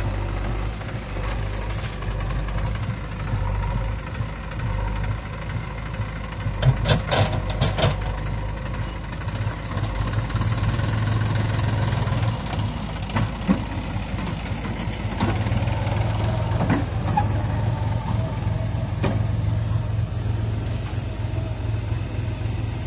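Diesel engines of a New Holland tractor and a JCB backhoe loader running steadily, the tractor pulling a trailer through loose, dug-up soil. There is a quick run of metallic knocks and clanks about seven seconds in, and a few single knocks later.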